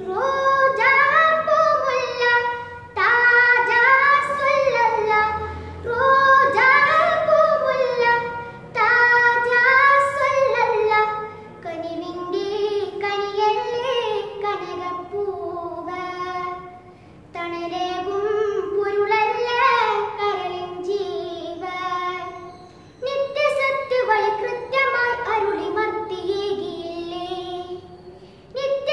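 A boy singing a Malayalam madh song, an Islamic devotional song of praise, solo and unaccompanied. He sings in phrases of a few seconds each, the pitch rising and falling within each one, with short breaths between them.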